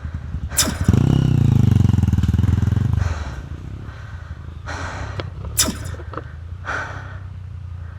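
Single-cylinder trail motorcycle engine revving for about two seconds, then dropping back to a steady idle. Two sharp knocks come through, one early and one near the middle.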